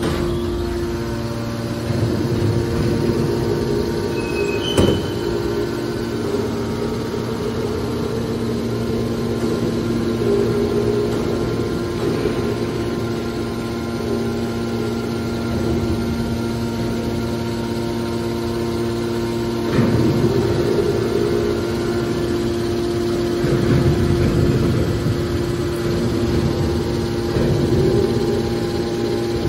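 Iron scrap baler running: a steady hum from its hydraulic pump drive. A single sharp knock comes about five seconds in, and the sound grows louder and rougher a few times in the second half.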